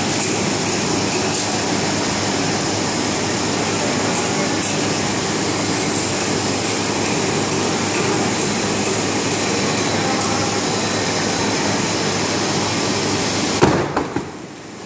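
Shaftless slitter-rewinder running with a large kraft paper reel turning on its drum: a loud, steady mechanical noise. Near the end come a few sharp knocks, and then the noise drops away suddenly.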